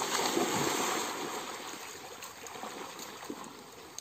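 Muddy stream water splashing and sloshing as a man wades and swims through it. The splashing is loudest in the first second, then settles to a softer wash.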